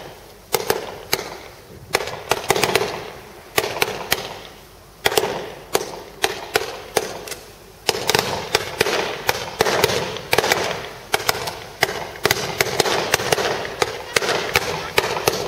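Fireworks display: many aerial shells and comets firing and bursting in quick sharp bangs, each trailing off into a noisy tail. The bangs come in clusters and grow thicker from about eight seconds in.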